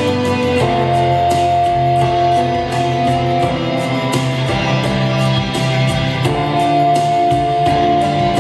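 Guitar-led music with a steady beat, played from a computer through a homemade LM3886 bi-amplifier into a bookshelf speaker as a listening test of the amplifier.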